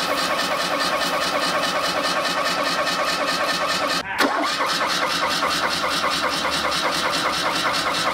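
Petrol car engine being cranked over by its starter with WD-40 sprayed into the carburettor and the fuel line clamped off. It turns over in a steady rhythmic chug without catching. There is a brief dropout about four seconds in.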